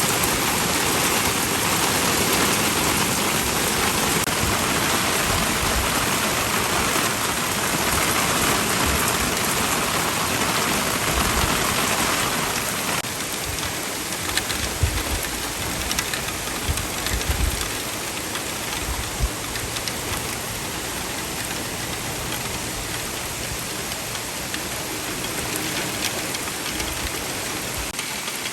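Heavy rain pouring down in a dense, steady hiss. About halfway through it eases slightly and a few brief low thumps come through.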